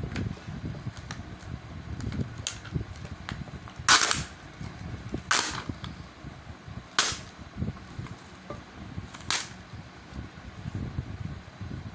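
Four sharp clicks or snaps, spaced one to two seconds apart, over a low rumble.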